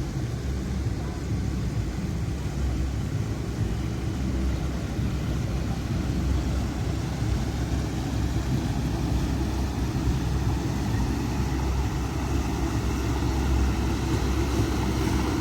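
Steady low rumble of a passing river tour boat's engine, with wind buffeting the microphone.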